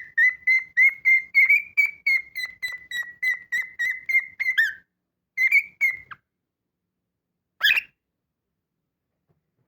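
Male cockatiel whistling a fast run of short repeated notes, about four a second, that breaks off about five seconds in. Two more notes follow, then one short, harsher sound a couple of seconds later.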